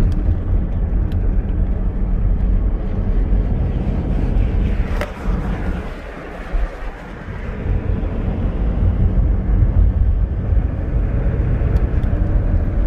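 Car engine and road noise heard from inside the cabin while driving downhill: a steady low rumble that eases off for a second or two about halfway through, just after a sharp click.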